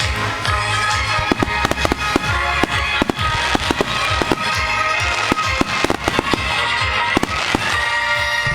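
Fireworks shells bursting in quick succession, several bangs a second, over music played for a music-synchronised fireworks show.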